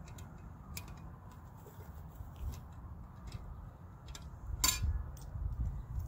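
Cast iron Dutch oven being set down on charcoal briquettes: a few light metallic clinks from the pot and its wire bail handle, the sharpest and loudest about three-quarters of the way through, over a low rumble.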